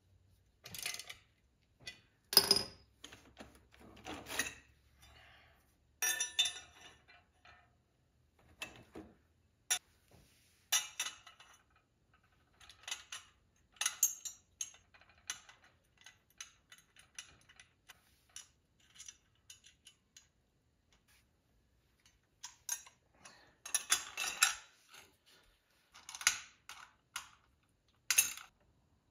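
Steel aerator knives and spool parts clinking and clanking against each other as they are fitted onto the spool assembly and bolted, in scattered bursts of sharp metallic knocks, the loudest about two seconds in, with a quieter spell in the second half.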